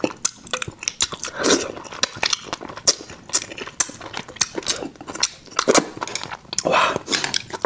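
A person chewing and biting food close to a clip-on microphone: rapid wet clicks and mouth smacks, with a couple of longer, noisier moments about a second and a half in and near the end.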